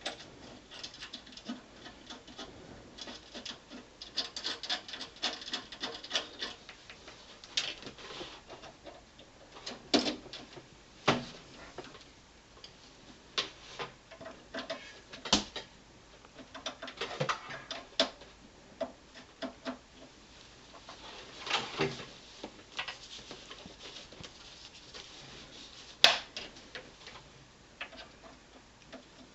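Cables being plugged back into the rear ports of a desktop PC: irregular rustling and scraping of cables and connectors, with scattered clicks and knocks as plugs are pushed into their sockets, the loudest a sharp click near the end.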